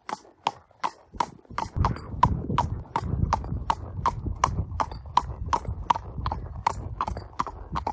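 A thoroughbred's hooves clopping on a wet tarmac lane at a walk, an even beat of about three steps a second. A low rumble of wind on the microphone sets in about two seconds in.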